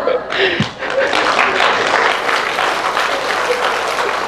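Audience applauding, beginning about half a second in and continuing as dense, steady clapping.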